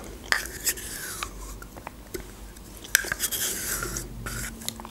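Close-up eating sounds: a metal teaspoon clicking and scraping inside a small plastic yogurt cup, with the wet mouth sounds of eating spoonfuls of yogurt. There are a few sharp clicks, the clearest about a third of a second in and about three seconds in.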